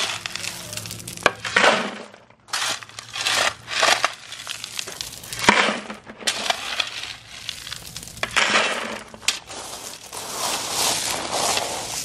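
A metal shovel scraping into loose river-rock gravel again and again, each scoop a scrape and a rattle of pebbles, some tipped into a plastic 5-gallon bucket.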